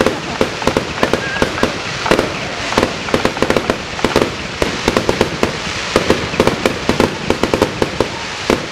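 Aerial fireworks bursting overhead in a rapid barrage: a continuous run of sharp bangs and crackles, several a second.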